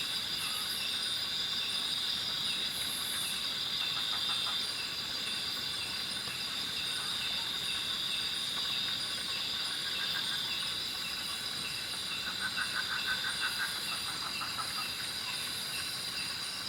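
Night chorus of forest insects: a steady, high-pitched drone with a faster, higher ticking call repeating over it. About twelve seconds in, a louder pulsed trill rises over the chorus for a couple of seconds, then fades.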